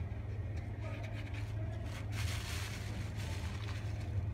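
A plastic bag rustles and crinkles for about a second, some two seconds in, as powder is poured from it into a clay pot, over a steady low hum.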